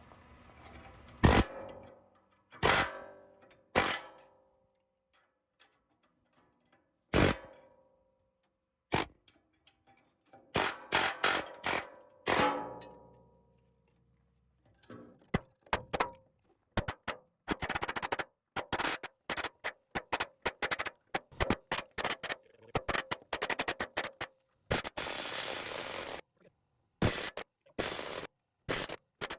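A few separate metal clangs that ring on, then a pneumatic needle scaler hammering rapidly against rusted sheet steel, breaking off rust scale. The hammering comes in short choppy runs through the second half.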